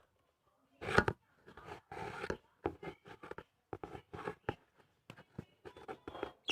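Pet birds, likely lovebirds, moving about in their cage: a string of short scratching, clicking and rustling noises, the loudest about a second in, with a few faint chirps near the end.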